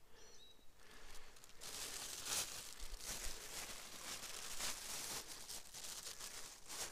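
Footsteps brushing through forest undergrowth with a plastic bag crinkling and rustling, starting about a second and a half in and continuing as a dense, crackly rustle.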